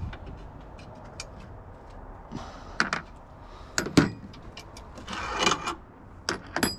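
Engine-bay covers being worked loose and lifted by hand: irregular sharp clicks and knocks, with a short scraping rustle about five seconds in.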